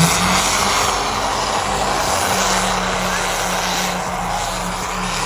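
A performance car engine at full throttle, holding a steady high pitch with a rushing noise over it, slowly fading.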